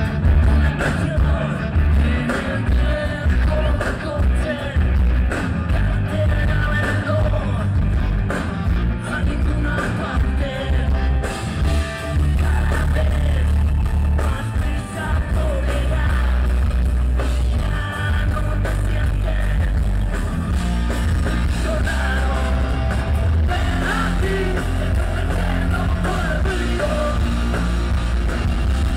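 Live rock band playing at full volume: electric guitars, bass and drums, with a man singing.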